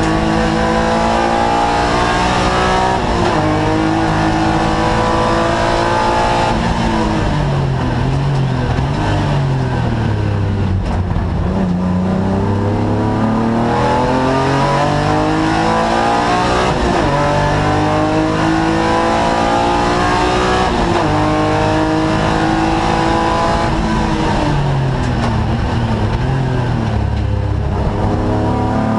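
Race car engine heard from inside the cockpit at racing speed, climbing in pitch through the gears with a drop at each upshift. Twice it falls away as the car slows for corners, then pulls hard again.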